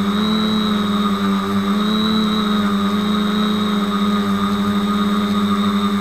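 Brushless motors and propellers of a 450-size quadcopter, heard through its onboard keychain camera. They make a steady, loud hum whose pitch rises slightly twice.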